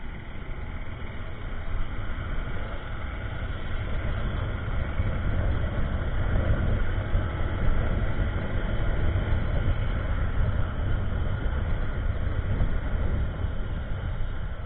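Motorcycle on the move: a steady rumble of engine and wind noise over the microphone, with no distinct pitch, swelling a little louder through the middle.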